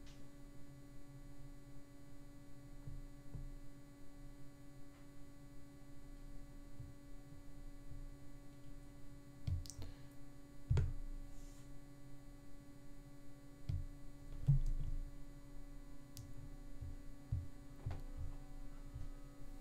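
Low steady electrical hum, with scattered soft clicks and a few low thumps, the most noticeable about halfway through and again a few seconds later.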